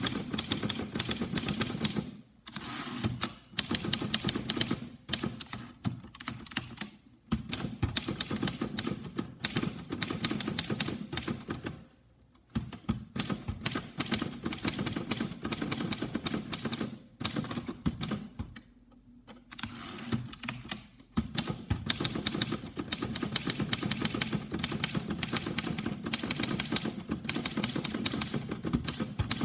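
1930 Royal Model P portable typewriter being typed on: a fast, uneven run of key and typebar strikes against the platen, broken by a few short pauses, the longest of about two seconds about two-thirds of the way through.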